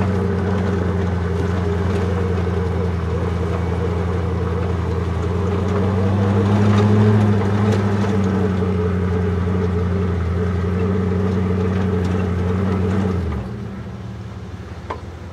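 Engine of a two-axle truck trial prototype running hard under load as it crawls through a ditch, a steady drone that swells briefly about halfway, then drops abruptly to a much lower, quieter idle about two seconds before the end.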